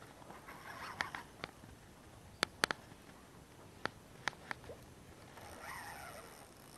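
About eight sharp, isolated clicks from a spinning reel and rod being handled while a hooked sea bass is played, the loudest pair about two and a half seconds in. Faint waterfowl calls near the end.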